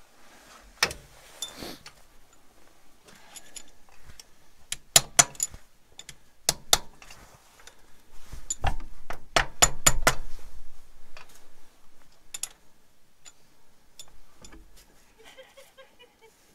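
Steel hand tool clinking and tapping against the steel shaft and locking ring of a tractor's three-point lift, in a few quick clusters of sharp metallic clicks with short gaps between.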